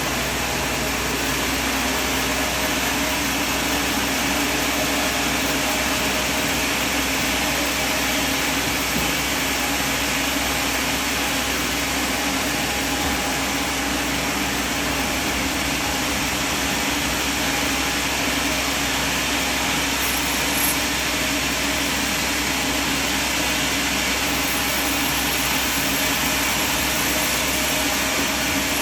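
A sawmill running: a steady mix of engine and machine noise with a constant hum and no let-up.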